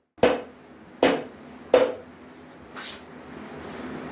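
Three sharp knocks about three-quarters of a second apart, each with a short ring, followed by a fainter knock and a steady hiss that slowly grows louder near the end.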